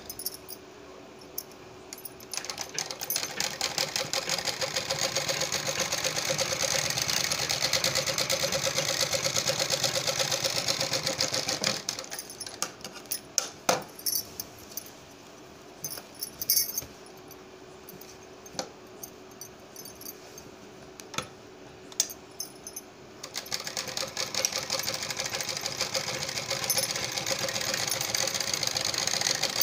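Sewing machine stitching through fabric in two long, steady runs. It stops for about ten seconds in the middle while the fabric is turned, with a few sharp clicks during the pause.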